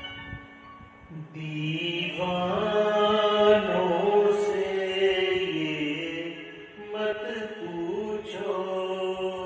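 Bansuri (bamboo flute) playing a slow melody in long held notes over a quieter backing. The music swells in about a second in, eases off briefly around six seconds, then carries on.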